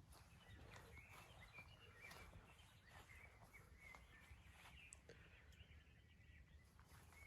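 Faint, scattered bird chirps over quiet background noise, with a few soft clicks.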